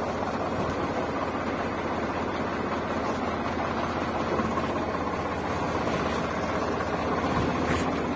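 Steady engine-like running sound, even and unbroken, with no clear revving.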